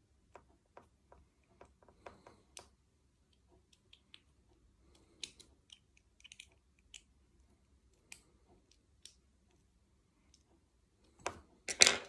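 Small scattered clicks and ticks of a metal banana plug and stranded copper speaker wire being handled while the wire is threaded into the plug, with a cluster of louder clicks near the end.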